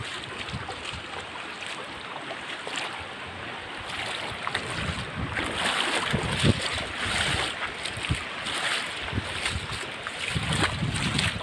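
Shallow river running over rocks, a steady rushing wash, with wind buffeting the phone microphone in gusts, strongest in the middle and near the end.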